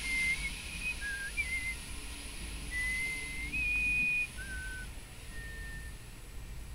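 Passenger train cars rolling past with a low rumble. Over it, a string of clear, high whistle-like tones come and go at shifting pitches, the loudest one about three and a half seconds in.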